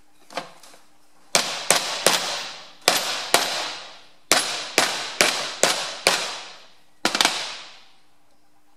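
Hammer striking a round steel plate to drive a new axle oil seal into a tractor rear axle bearing housing. About a dozen sharp metallic blows come in uneven groups, each ringing out for up to a second.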